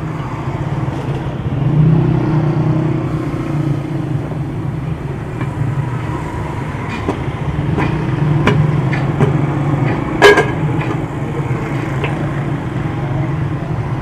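Steady hum of engines and street traffic, with scattered clicks and knocks from tyre-changing work. One louder, sharper sound comes about ten seconds in.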